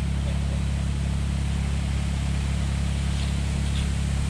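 Mahindra eMax 20S HST subcompact tractor's diesel engine idling steadily, a constant low hum.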